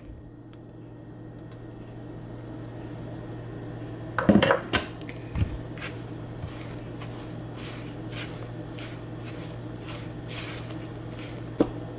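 Kitchen bowl and utensils knocking and clinking a few times, about four seconds in, as a wet batter mixture is added to a bowl of dry ingredients. One more click comes near the end, over a steady low hum.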